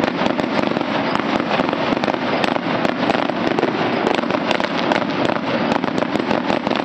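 Fireworks grand finale: many aerial shells bursting and crackling in quick succession. The sharp bangs overlap into one continuous loud din with no pauses.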